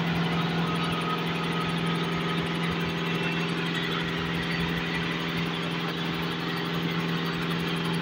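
Kubota tractor's diesel engine idling steadily, turning the belt-driven air-horn compressor fitted to it: an even, unchanging hum.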